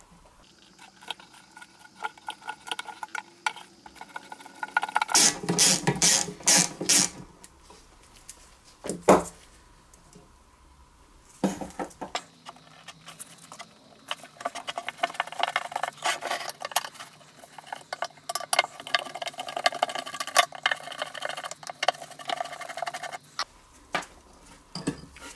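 Hand tools clicking and clinking on a rusty carburetor and fuel tank assembly as the carburetor is unscrewed from the tank. There is a run of sharp metal knocks about five to seven seconds in, one loud knock at about nine seconds, then steady small clicking and rattling through most of the second half.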